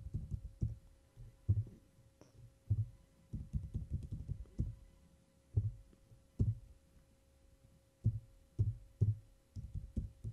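Computer keyboard typing, heard as irregular dull thumps, with a faint steady electrical hum underneath.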